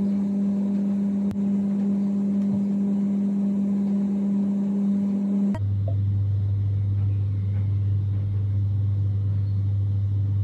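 Steady low droning hum that drops abruptly by about an octave about five and a half seconds in.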